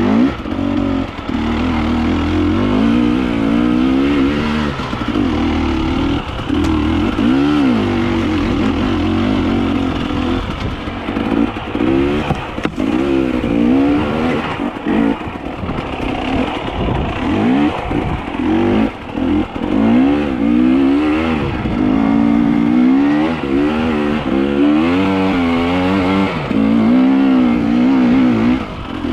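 Motor vehicle engine running and revving, its pitch rising and falling over and over.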